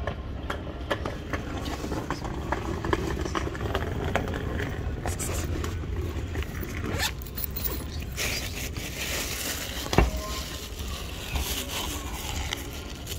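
Zip on a black nylon bag being pulled, with scratchy rustling and handling of the fabric and a sharp click about ten seconds in.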